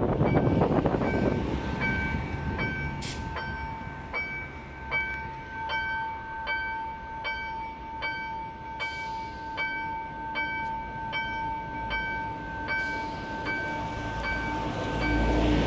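Railroad level-crossing warning bell sounding: a steady high tone with a chime repeating a bit under twice a second. A low rush of passing traffic fades in the first second or so, and a bus's engine rumble rises near the end.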